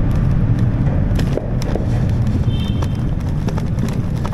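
Steady low rumble of a vehicle, with scattered light clicks and a brief high beep about two and a half seconds in.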